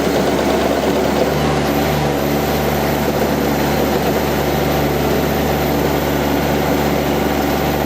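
Kubota D1105 three-cylinder diesel engine of a mini skid steer running steadily.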